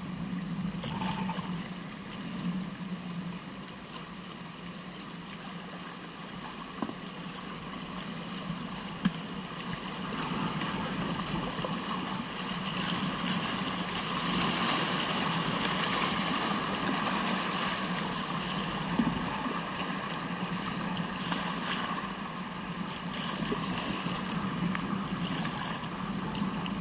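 Rushing water of a whitewater river heard from a kayak. It is a steady wash that swells louder in the middle, with a few sharp knocks.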